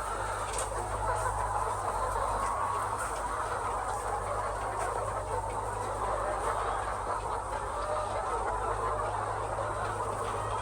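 A large flock of laying hens clucking all at once, a dense, continuous chatter of overlapping calls, over a steady low hum.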